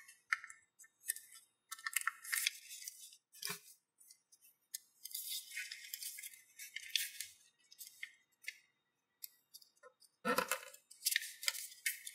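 Sheet of origami paper rustling and crinkling in irregular bursts as it is folded and creased by hand. Two soft thumps, the louder one near the end, as the paper is pressed against the table.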